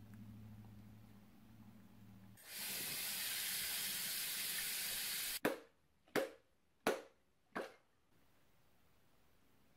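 Kitchen tap running hard over a pickle jar's lid for about three seconds, then cut off abruptly. Four sharp knocks follow, about two-thirds of a second apart, as the jar is struck to loosen its stuck lid. Before the water, a low steady hum.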